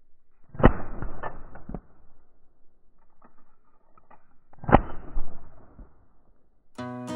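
Footsteps and brush crunching on rocky desert ground, heard as a string of sharp knocks, the loudest about half a second in and just under five seconds in. Acoustic guitar music comes in near the end.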